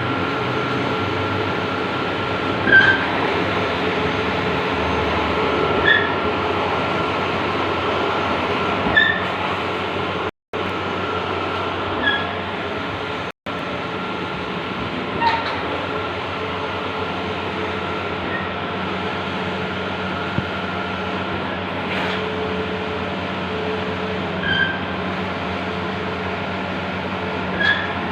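Large-format outdoor banner printing machine running, a steady mechanical hum and whir with a short chirp about every three seconds.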